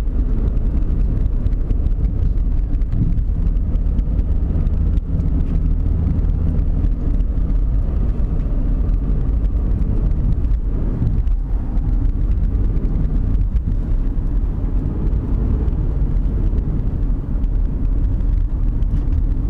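Car driving up a mountain road: steady, loud low rumble of engine and tyre noise.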